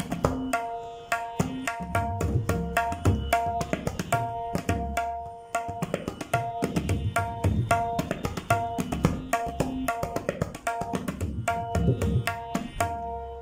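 Tabla played solo in teentaal: a qisma, the theka embellished with extra bols, in a quick, even run of strokes. The right-hand dayan rings with a clear pitch and the left-hand bayan gives deep bass strokes. The playing stops just before the end.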